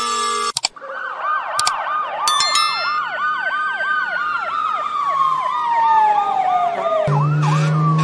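Ambulance siren in a fast yelp, about four sweeps a second, with a slower wail over it that rises for about three seconds and then falls. The siren follows half a second of a fire-truck siren's steady falling tones. A few clicks and a short chime come about two seconds in, and a different ambulance siren with a low steady drone takes over near the end.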